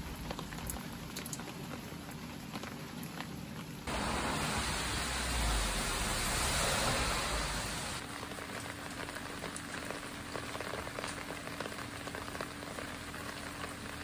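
Rain falling onto glazed earthenware crocks and into a puddle, with single drops striking distinctly through a steady hiss. For about four seconds in the middle the rain is louder and denser.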